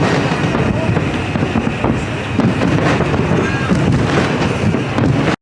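Steady hubbub of many voices with wind buffeting the microphone. It starts and cuts off abruptly.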